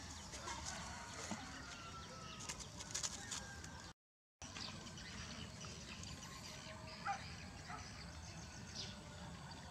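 Outdoor ambience of birds chirping and calling, with a brief sharper call about seven seconds in. The sound drops out completely for a moment about four seconds in.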